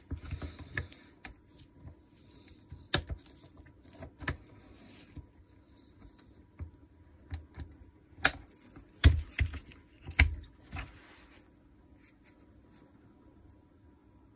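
Small metal chuck parts of a Makita DHR242 rotary hammer, springs and washers, clicking and clinking as they are handled on the bench. The taps come at irregular intervals, the sharpest about 3, 8 and 10 seconds in, and stop about 11 seconds in.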